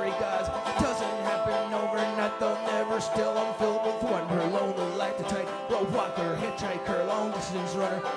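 Live band music with banjo and guitar playing, in a passage without sung words.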